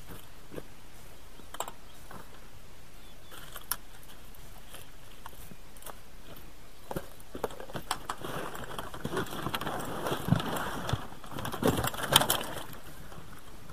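Scattered clicks and knocks of fishing gear being handled in a small inflatable boat, turning from about eight seconds in into a busier stretch of splashing and knocking at the side of the boat.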